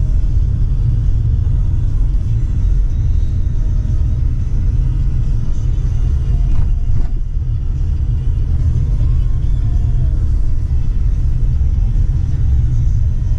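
Car driving at a steady speed, with a constant low road and engine rumble heard from inside the cabin.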